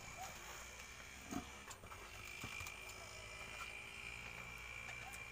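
Quiet rural background with a steady high-pitched whine and a few faint, short animal calls; a single soft knock about a second and a half in.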